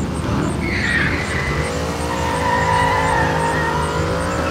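A full-size Lightning McQueen replica car's engine running as the car slides in a turn. From about a second in, its tyres squeal in a long, steady, high tone.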